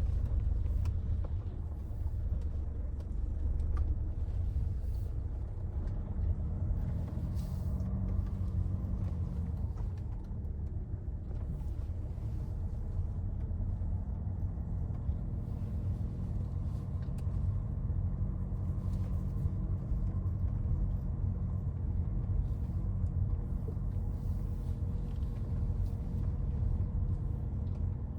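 Citroen C5 Aircross driving: a steady low rumble of engine and road noise, with faint tones that drift up and down in pitch.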